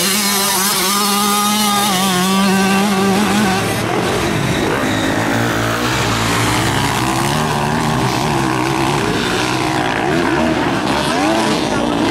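Motocross motorcycle engines revving hard. For the first few seconds one engine is held at a fairly steady high pitch, then several engines overlap, their pitch rising and falling as the riders work the throttle and shift.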